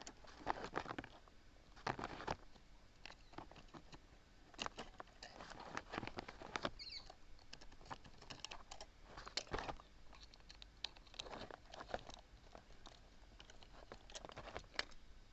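Faint, irregular small clicks, taps and scrapes of hands handling parts: cleaned copper contact strips being fitted back into the contact carrier of a motor starter.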